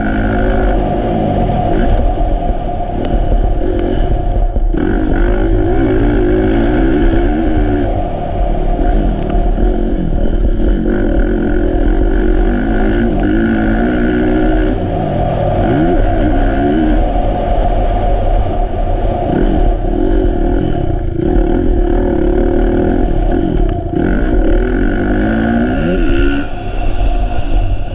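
Kawasaki KX450F motocross bike's single-cylinder four-stroke engine, heard close from the bike itself, revving up hard and dropping back again and again as the rider accelerates, shifts and slows through the turns of a dirt track.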